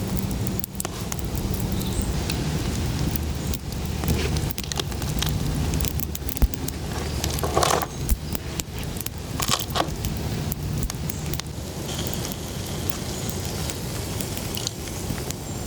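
Campfire crackling, with scattered sharp pops and clicks over a steady noisy hiss.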